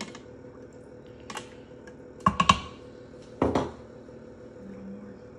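Kitchen clatter: a plastic stirring tool knocking against a stainless-steel cooker pot and being set down. A light click comes first, then three quick sharp knocks with a short ring, the loudest part, then a duller knock about a second later.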